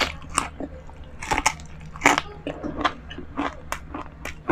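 Close-miked chewing of crispy fried chicken: an irregular string of sharp crunches and mouth clicks, a few a second.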